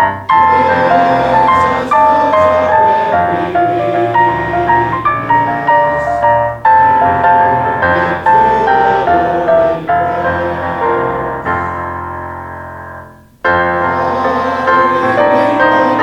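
Hymn music played on a piano, chord after chord at a steady pace. About thirteen seconds in, a held chord dies away and the playing starts again straight after.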